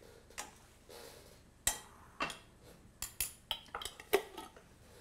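A metal spoon and kitchenware clinking against a frying pan and dishes: a scattered run of sharp clinks. The loudest comes about a second and a half in, and a quick cluster follows between three and four seconds in.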